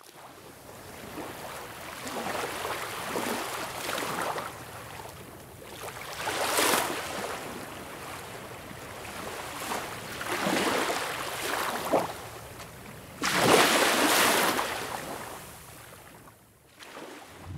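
Water sloshing and rushing in uneven surges. The loudest surge comes about three-quarters of the way through, then the sound dies away.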